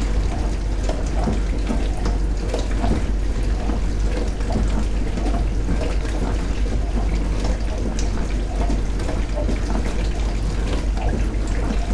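Dishwasher running mid-cycle: water churning and splashing inside the tub over a steady low motor hum.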